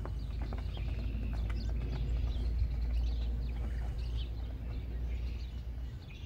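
Hoofbeats of a palomino Welsh pony walking on a dirt-and-gravel lane, clear at first and fading as it moves away, over a steady low rumble. Birds chirp now and then.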